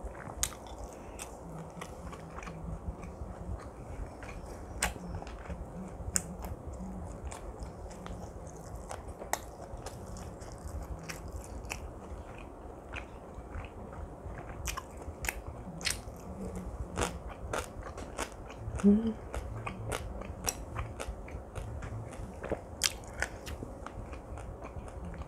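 A person chewing a mouthful of food close to the microphone, with many wet mouth clicks and smacks and a few short hummed sounds. The loudest is a brief hum about nineteen seconds in.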